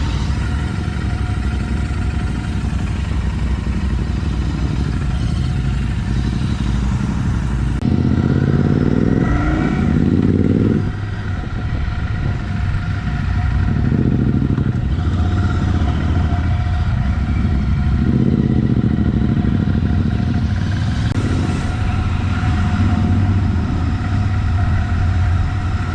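Royal Enfield Interceptor 650 parallel-twin with an aftermarket AEW exhaust running, revved up and down a few times from about eight seconds in.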